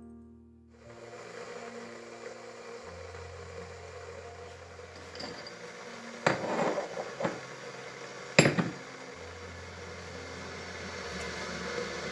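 A ceramic saucer being set down on a kitchen counter: a short cluster of clinks about six seconds in and one sharp, louder clink a couple of seconds later, over a steady low hiss.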